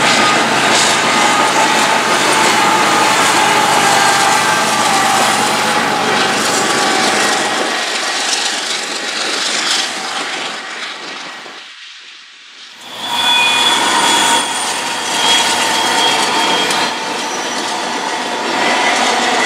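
Freight trains passing close by: the steady rumble and rattle of a double-stack container train's wheels on the rails, dying away about ten seconds in. After a brief lull, a second freight train with a BNSF diesel locomotive passes, with steady high tones over its wheel noise.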